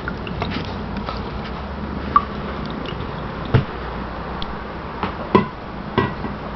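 Water running into a kitchen sink as a kitten plays in it, with a steady hiss and a handful of sharp taps and splashes from its paws.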